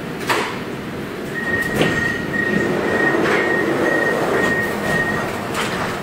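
Milan Metro Line M5 driverless train running through a tunnel, heard from inside the front car: a steady rumble of wheels on rail with a sharp click about every second and a half. A high pulsing tone runs for about four seconds in the middle.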